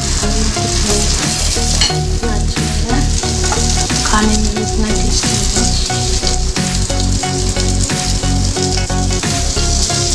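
Chicken tikka pieces sizzling in an oiled non-stick grill pan while a wooden spatula scrapes and lifts them.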